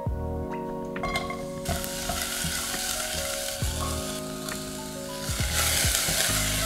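Sliced onion frying in coconut oil in a saucepan. The sizzle starts about two seconds in and grows louder near the end, as ginger and garlic go in and are stirred with a spatula.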